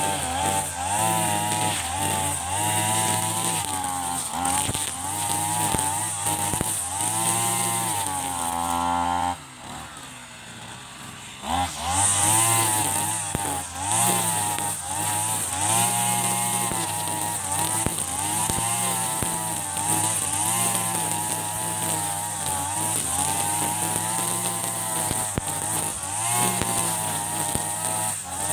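Mitsubishi TU33 33 cc two-stroke backpack brush cutter running at high revs while cutting tall grass, its engine pitch wavering up and down with the load. About nine seconds in it drops to idle for about two seconds, then revs back up.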